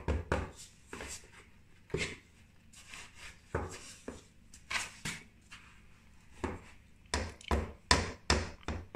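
Wooden spoon stirring soft butter and sugar in a mixing bowl, knocking and scraping against the bowl's side at an irregular pace, with quicker strokes near the end. This is the creaming stage of shortbread dough.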